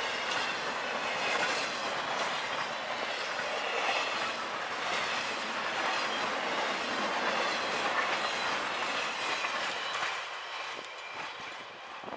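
CSX intermodal freight train, truck trailers on railcars, passing through a grade crossing: a steady rolling rumble with wheels clattering over the rail joints. It fades away from about ten seconds in.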